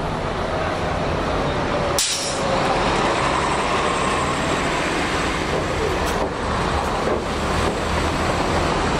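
Road traffic with a city bus running, and a short, sharp air-brake hiss about two seconds in. A faint whine glides after the hiss.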